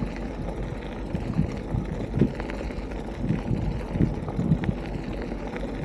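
Beach cruiser bicycle rolling along a dirt trail: steady tyre and wind noise with irregular small knocks and rattles from the bike.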